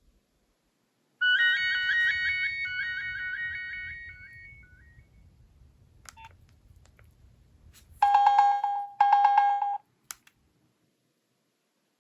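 Nokia 3300b mobile phone playing ringtones through its small speaker. First comes a quick run of high, chiming notes that fades away over about three seconds. A few seconds later come two short bursts of a rapidly pulsing, buzzy beep.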